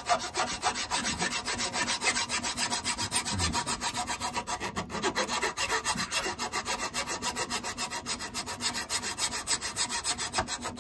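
Hand file being pushed back and forth across the cast-iron body of a bench plane in quick, even strokes. The metal is being filed away to make room for a thicker replacement plane iron.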